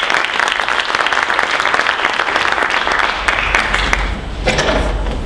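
Theatre audience applauding, the clapping dying away about four seconds in.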